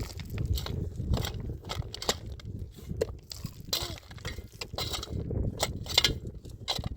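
Irregular crunching and clicking, many short sharp sounds close together over a low rumble.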